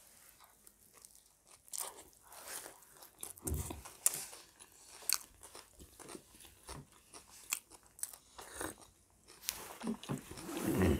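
People biting into and chewing homemade veg burgers close to the microphone, with irregular soft crunches throughout.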